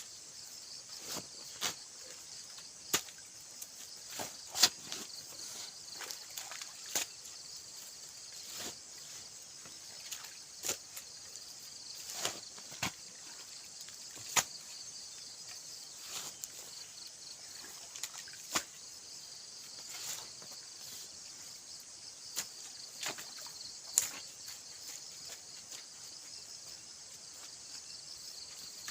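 Steady high-pitched insect chorus with a fine pulsing trill, overlaid by irregular sharp knocks every second or two.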